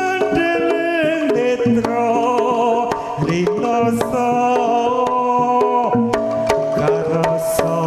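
Live Javanese jaranan ensemble music played through a sound system: hand drums beating a steady rhythm under a sliding, wavering melody line.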